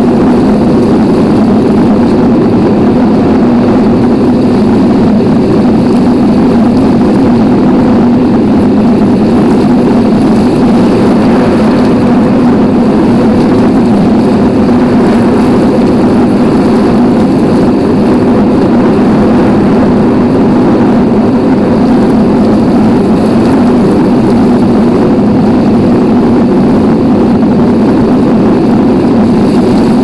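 Heavy rain falling hard and without let-up, a loud, dense, even wash of noise that is heaviest in the low end.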